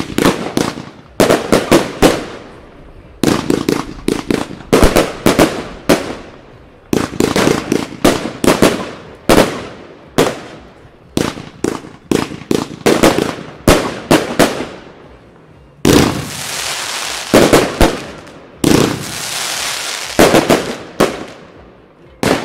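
25 mm compound fireworks cake firing volleys of tubes: rapid clusters of sharp launch and break reports, each group a second or two long with short gaps between. In the last third, two stretches of steady hissing of about two seconds each are mixed with further reports, and a single report comes near the end.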